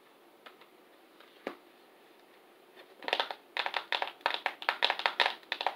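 Makeup items being handled: two faint clicks, then from about three seconds in a quick, irregular run of clicks and rustling lasting a couple of seconds.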